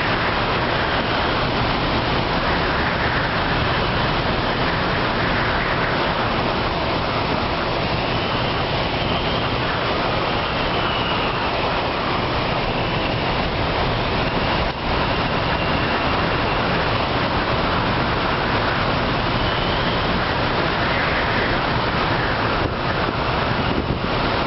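Typhoon-force wind gusting hard along the shore, a dense, steady rush of noise with surf breaking beneath it. A faint wavering whistle comes and goes.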